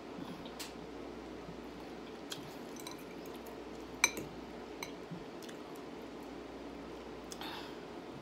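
Close-up eating sounds: wet chewing of spaghetti with scattered small mouth clicks, and one sharp, ringing clink of a metal fork against a glass bowl about four seconds in, the loudest sound. A steady low hum sits underneath.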